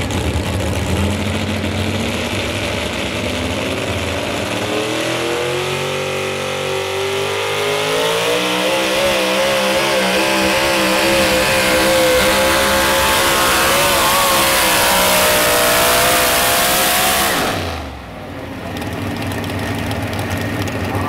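A modified 4x4 pulling truck's engine at full throttle under the load of a pull. Its pitch climbs steadily over several seconds, then holds high with a wavering note. About three seconds before the end the sound drops away suddenly, then comes back lower.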